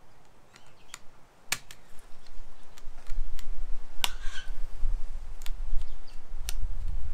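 Sharp clicks and snaps of a tablet's small circuit board and its thin copper heat sink being pried apart and handled: about five separate cracks spread out, over a low handling rumble.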